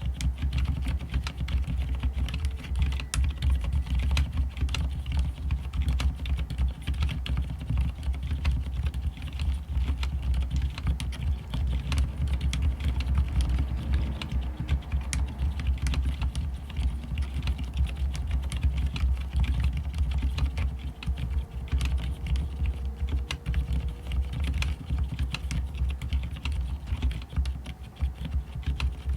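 Continuous typing on a mechanical keyboard with fully lubed Cherry MX Silent Red switches. The keystrokes are quick and dense, with the switches themselves nearly silent, so mostly fingers striking the keycaps are heard.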